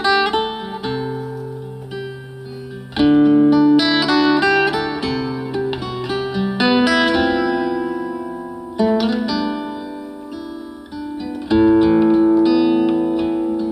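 Nylon-string classical guitar played solo: an instrumental passage of plucked chords and single notes, each chord struck and left to ring out, a fresh one every two or three seconds.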